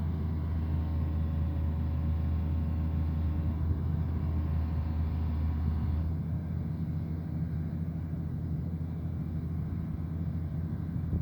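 Excavator diesel engine running steadily, with a deep hum; its note changes about six seconds in as the lowest part drops back.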